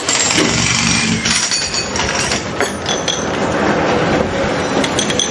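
Jackhammer breaking into brick and concrete, running continuously as a loud, dense rattle.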